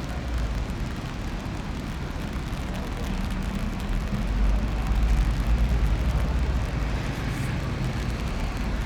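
Low rumbling wind noise buffeting the camera's microphone, swelling for a couple of seconds around the middle.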